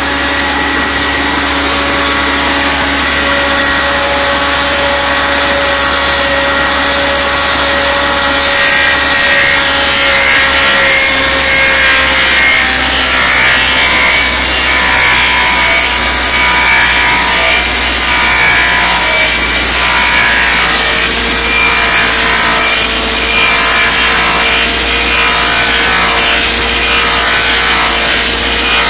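Axe-handle turning lathe running steadily, its cutters shaving wood from a handle blank, over a machine hum whose pitch changes about halfway through.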